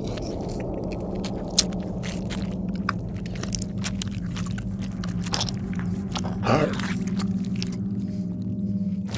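Crunching and crackling, many sharp irregular snaps, over a steady low hum. It sounds like gore foley made by crushing produce.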